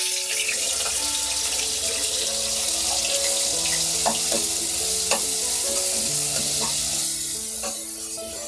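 Onion-garlic paste sizzling as it fries in hot oil in a pan, with a few light clicks of stirring; the sizzle eases a little near the end. Soft background music with held notes plays over it.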